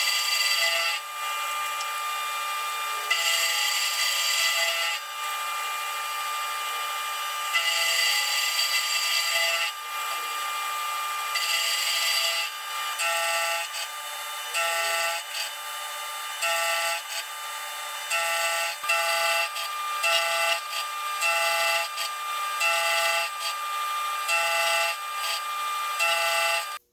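Machine tool cutting a steel strap down to width, with a steady high metallic whine that swells in patches every few seconds, then pulses in a regular rhythm about once a second through the second half.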